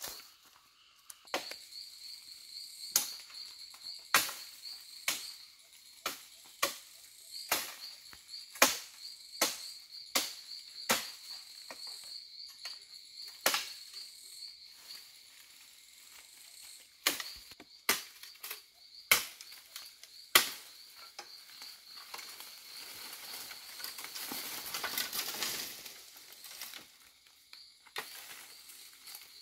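Dry bamboo and branches cracking and snapping as they are broken up and cleared, a sharp snap about every second for some twenty seconds. Then leafy branches rustle as they are dragged. Insects chirr steadily throughout.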